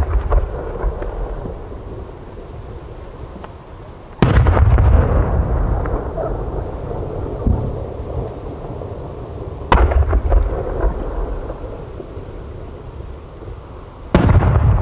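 Aerial firework shells bursting: three deep booms about five seconds apart, each trailing off in a long rolling echo.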